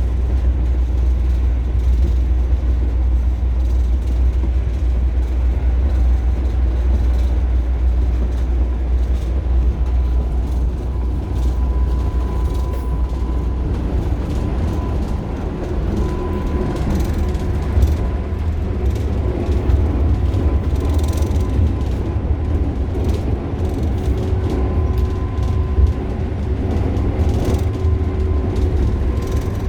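2022 Renegade XL running with a steady low rumble, with scattered short knocks throughout: the knocking noise that is the complaint.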